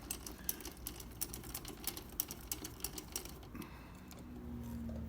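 1/4-inch drive ratchet clicking in quick, irregular strokes as it unscrews a 12-point pad pin from a Harley-Davidson Road King's rear brake caliper. The clicking stops about three and a half seconds in, and a faint low hum follows.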